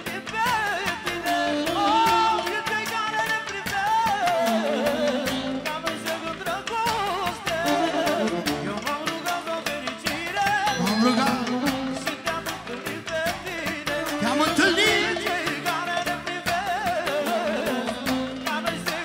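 Live manele band music in an instrumental break: an ornamented, pitch-bending melody line over keyboard and a steady drum beat.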